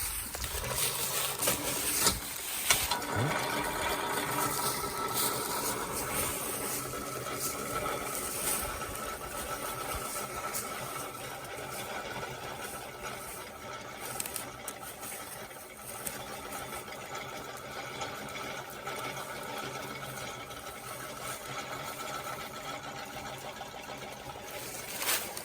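Honda ATV engine idling steadily, slowly growing fainter, with a few light clicks and knocks.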